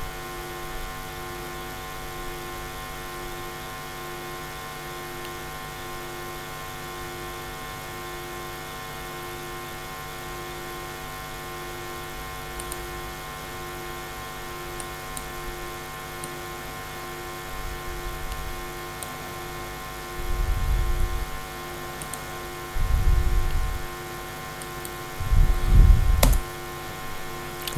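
Steady electrical mains hum made of several steady tones, one of them pulsing evenly. A few low muffled bumps come in the second half, and there is a single sharp click near the end.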